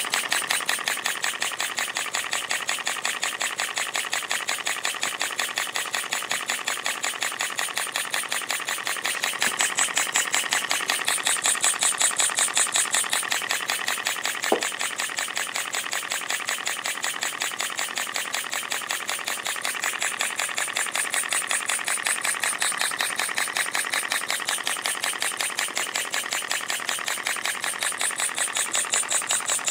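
Scratch-built rotary-valve model steam engine running on compressed air: a rapid, even chuffing of air exhausting from the valve. It swells louder about a third of the way in, and there is a single click near the middle.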